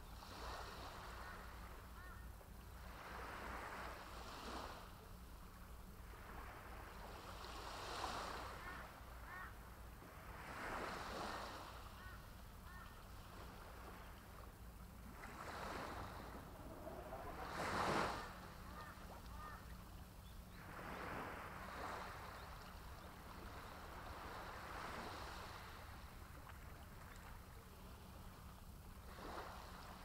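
Small waves breaking and washing up a sandy, pebble-strewn shore. Each wash swells and fades every few seconds, and the biggest comes about two-thirds of the way through.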